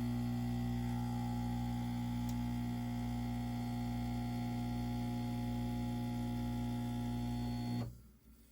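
Home espresso machine's pump humming steadily while extracting a shot, then cutting off abruptly near the end.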